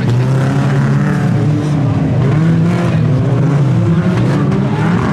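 Several stock cars of the up-to-1800 cc class racing, their engines running hard together, the overlapping engine notes rising and falling as the drivers accelerate and lift.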